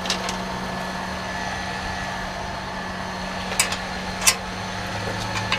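A steady low mechanical hum, with a few sharp clicks of metal hand tools being handled, the loudest about four seconds in.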